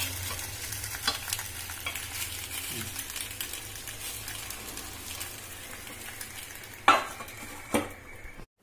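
Semolina (suji) appe frying in oil in a non-stick appe pan, a steady sizzle with small scrapes as a knife turns them. Near the end, two loud metallic clanks as a steel lid is set on the pan to cover it.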